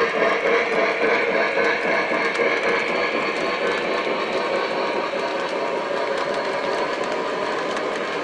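O-scale model train, a Lionel Legacy PRR B6sb steam switcher pulling an MTH work train, rolling by on three-rail track: a steady running rumble of the cars' wheels that eases off slightly as the train moves on.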